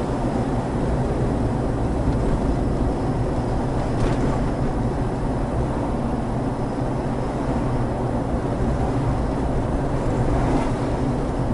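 Steady in-cabin road noise of a Toyota 4Runner driving along a paved highway: low tyre and engine rumble.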